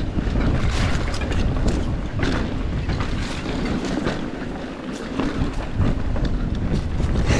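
Mountain bike riding fast over a rocky dirt trail: wind buffeting the microphone with a steady rumble of tyres on the ground, and frequent clicks and rattles from the bike hitting rocks and bumps.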